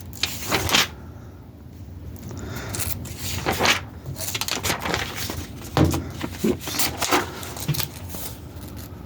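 Scattered handling noises: a few separate clicks, knocks and scrapes with quieter rustling between them.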